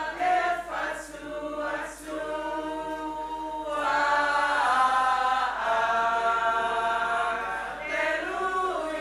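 A choir singing a hymn unaccompanied in harmony, with long held notes.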